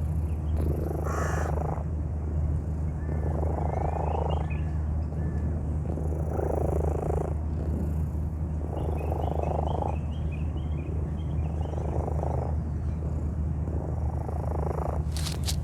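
A sick cat's abnormal, laboured breathing close to the microphone: a noisy breath about every two and a half seconds, six in all, over a steady low hum. A sharp click comes near the end.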